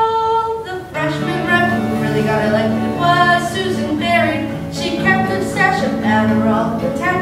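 A young woman sings a show-tune melody to acoustic guitar chords. A long held note ends about a second in, then the sung line moves on over the guitar.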